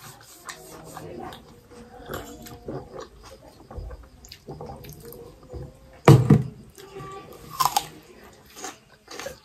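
Eating sounds: chewing and slurping of noodles, with light clicks of forks and spoons against steel plates. A louder clunk comes about six seconds in.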